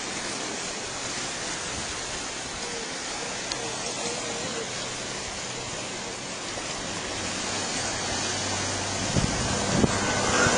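Sea washing against the rocky shore below, a steady rushing surf noise, with a few low wind bumps on the microphone near the end.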